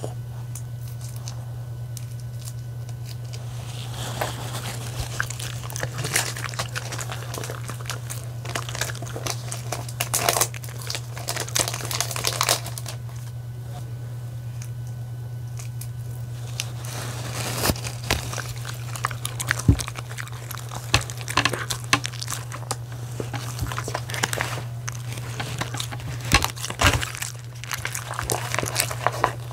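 Clear plastic wrapper of a dog-food donut crinkling and rustling in gloved hands as it is handled and unwrapped, in irregular spells starting about four seconds in, over a steady low hum.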